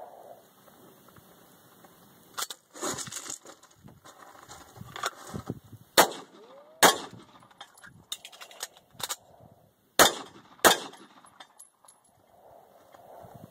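Sig Sauer P220 Combat .45 ACP pistol fired in two pairs of quick shots, the pairs about four seconds apart. Softer clicks and clatter come before and between them, the handling of magazine changes in a two-rounds-per-magazine reload drill.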